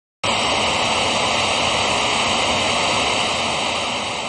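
Loud static hiss, a glitch sound effect, cutting in suddenly just after the start and fading out near the end.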